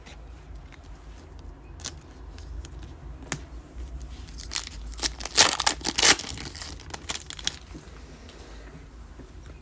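A Select NBA trading-card pack's foil wrapper being torn open and crinkled, in a run of loud rustling tears in the middle. Before it come a couple of light sharp clicks.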